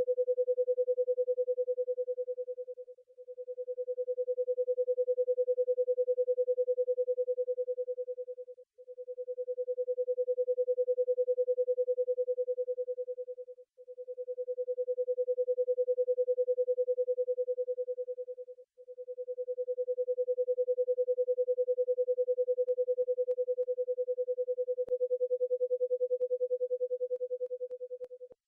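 A pure 500 Hz sine tone from the BeeOne brainwave generator, swelling and fading about every five seconds: the slow 0.2 Hz beat between left and right channels set 0.2 Hz apart. The last swell lasts about twice as long as the others.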